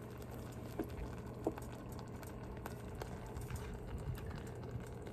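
Beef and spinach simmering faintly in sauce in a pan, a fine steady bubbling, over a low steady hum, with two light clicks about one and one and a half seconds in.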